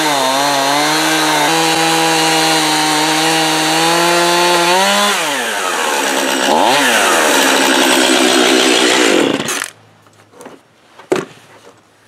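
Gas chainsaw in an Alaskan chainsaw mill cutting through a thick wooden bowl blank under load. About five seconds in its pitch drops, it revs up once more, then runs at a lower pitch until it cuts off suddenly at about nine and a half seconds. A few wooden knocks and clunks follow as the mill's wooden rail frame is lifted off.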